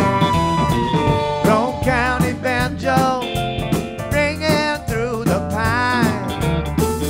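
Rock band music with electric guitars, bass and drums. A held note slides slightly down at the start, and a singer comes in with a wavering, vibrato-laden vocal line about a second and a half in.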